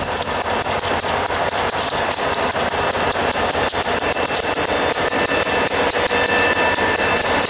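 EMD GP40 diesel locomotive with its turbocharged 16-cylinder 645 engine passing close by, with a second diesel unit behind. Its engine runs steadily over continuous rail noise and a quick, uneven run of wheel clicks.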